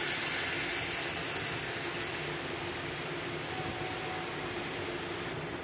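Spice-paste gravy hissing and bubbling in a kadai on the stove just after water has been added to the fried masala, a steady hiss that slowly dies down.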